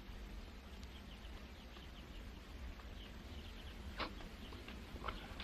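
Faint, scattered bird chirps over a low room hum, with two sharp clicks about four and five seconds in.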